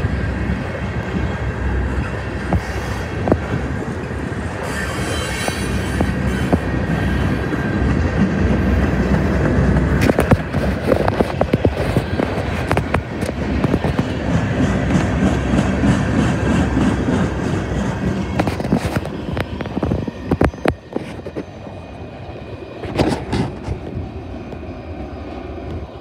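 Freight cars of a mixed freight train rolling past on the rails: a steady rumble of wheels with many sharp clicks over rail joints and a thin wheel squeal. The sound gets quieter over the last several seconds as the end of the train moves away.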